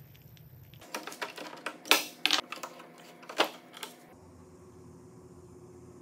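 Steel pipe clamps being handled and slid on their pipes on a workbench: a run of metallic clicks and clanks lasting about three seconds, the loudest about two seconds in and again about three and a half seconds in.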